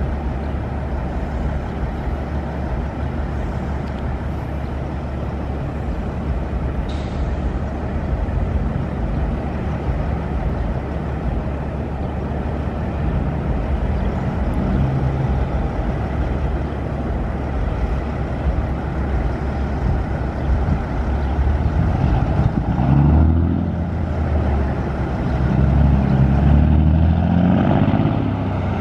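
Cummins NTC400 six-cylinder diesel of a 1984 Peterbilt 359 semi truck running steadily, its engine note rising and falling and getting louder over the last several seconds.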